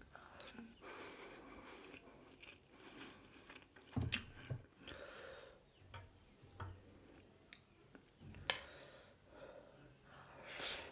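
Close-miked chewing and biting of grilled pork sekuwa and rice, with soft wet mouth sounds and a few sharp clicks, the loudest about four and eight and a half seconds in.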